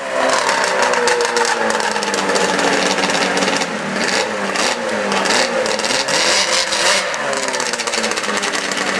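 Snowmobile engine running at low speed, its pitch rising and falling again and again as the engine speeds up and drops back.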